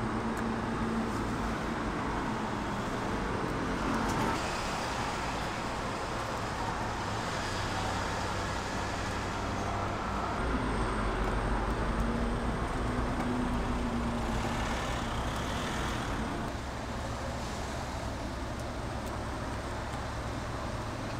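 Steady street traffic noise with a low rumble of vehicles.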